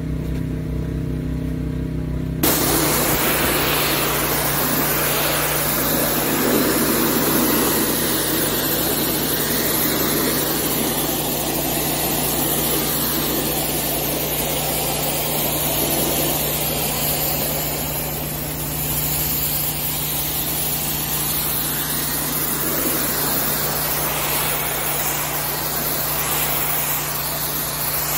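Pressure washer's motor running steadily. About two seconds in, a hissing water jet starts and keeps blasting against a concrete walkway.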